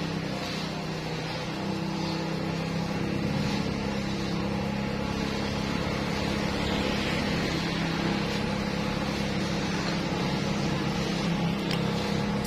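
Steady low motor hum with a few level tones, like an engine running, holding even throughout; a faint click near the end.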